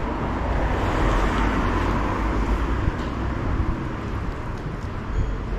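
City street traffic: a steady hiss of passing vehicles over a low rumble, swelling about a second in as a vehicle goes by.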